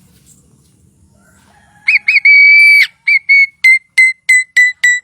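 A talking bird whistling: two short clear notes and a long held note about two seconds in, then a run of short repeated whistles at about three to four a second.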